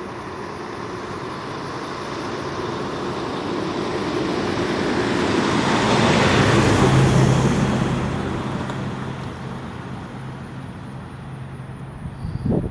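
A motor vehicle passing by on the road: a rush of engine and tyre noise that grows louder, peaks about halfway through with a low steady hum, then fades away.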